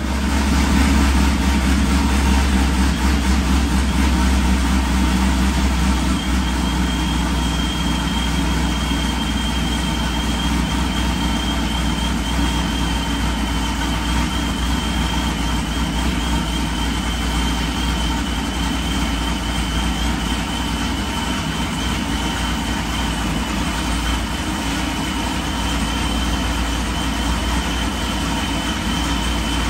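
Procharged Pontiac G8 GT's 6.0-litre V8 idling steadily, with a faint high whine that comes in about six seconds in and holds.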